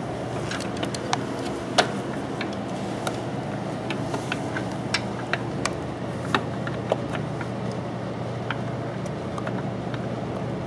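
Irregular sharp clicks and taps of metal and plastic as an Antec Kuhler H2O 620 water-cooler pump block is fitted and fastened onto the CPU socket, thickest in the first several seconds, over a steady low hum.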